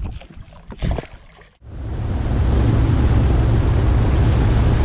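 Bass boat running across open lake water: a loud, steady rush of wind and water with a heavy low rumble, starting suddenly about a second and a half in.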